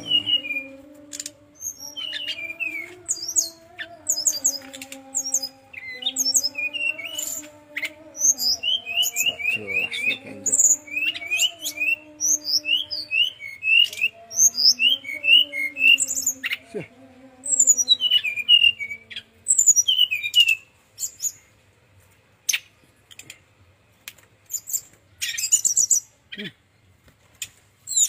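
Brown-chested jungle flycatcher singing a fast, varied song of high chirps and short down-slurred notes, with a quick run of repeated notes about a third of the way in and a pause of a few seconds near the end. A low wavering hum runs beneath the song for the first two-thirds.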